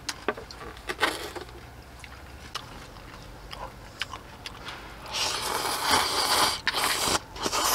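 A few light clicks of chopsticks and tableware, then about five seconds in a loud slurp of cup ramen noodles lasting a couple of seconds.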